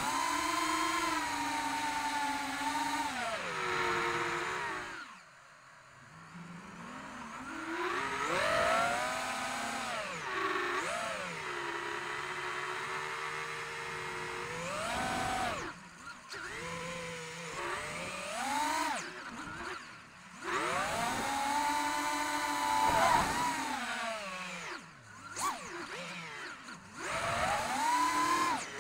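Five-inch FPV quadcopter's brushless motors and propellers whining hard, the pitch sweeping up and down with the throttle. The whine drops away several times as the throttle is chopped, then comes back as it is punched again.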